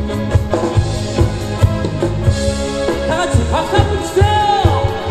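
Live amateur rock band playing a Korean trot song: drum kit keeping a steady beat under bass, electric guitar and keyboard, with a male singer's voice sliding in through the microphone about three seconds in.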